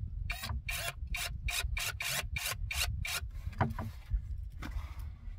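A hose clamp on a clear vinyl water hose being tightened with a cordless driver: a regular rasping, about four strokes a second for some three seconds, then a couple of softer scrapes.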